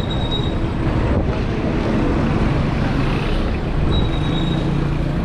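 Busy street traffic: car and motorbike engines running in a steady low hum, with a short high squeal near the start and again about four seconds in.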